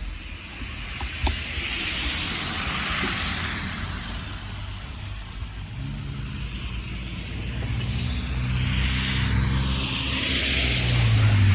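Road traffic passing: tyre noise on the snowy road swells and fades twice, and a vehicle engine's low hum grows louder over the second half.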